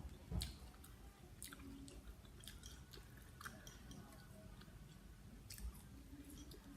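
Faint chewing of food, with scattered short wet mouth clicks and smacks.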